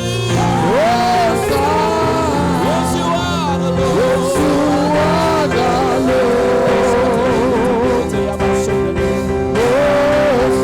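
Worship music: a single voice sings a slow, wavering melody over held chords.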